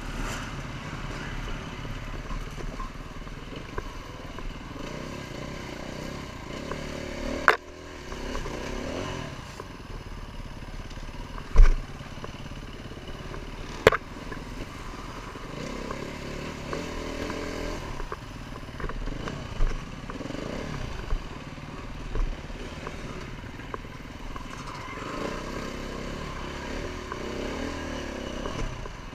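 Enduro dirt bike engine running and revving up and down as it is ridden along a rough trail, heard from a camera mounted on the bike, with a few sharp knocks.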